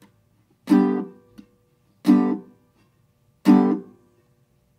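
Octave mandolin chord strummed three times, about a second and a half apart, each stroke cut off short as the ring finger and pinky are laid flat across the open strings to stop them ringing: a muted, percussive chop rhythm.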